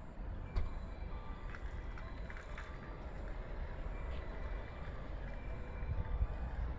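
Steady low rumble of outdoor ambience with wind buffeting the microphone, with a few faint clicks.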